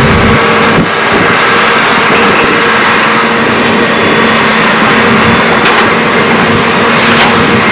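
Diesel engines of heavy excavators running steadily while they dig and load, with a steady hum and no breaks.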